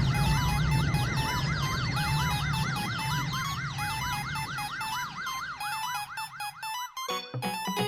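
Siren sound effect: a fast yelp-style warble rising and falling about five times a second over a low hum, cutting off about seven seconds in. Short electric keyboard notes start right after.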